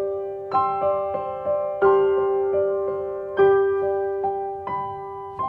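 Soft background piano music: a gentle melody of single notes struck and left to ring, with a stronger note about every second and a half.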